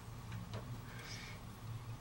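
Faint handling noises from fingers working on a CD drive mechanism's wiring: two light clicks, then a brief scratchy rustle about a second in, over a steady low hum.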